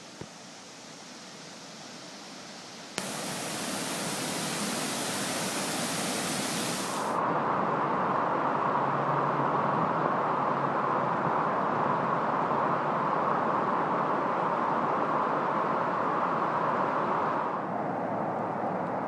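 Floodwater rushing over a road: a steady roar of water that jumps louder in sudden steps at about three and seven seconds and eases slightly near the end.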